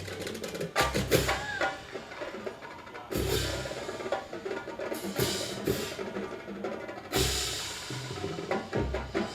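Drum and bugle corps playing, with the percussion section to the fore: loud drum hits about every two seconds over the rest of the ensemble.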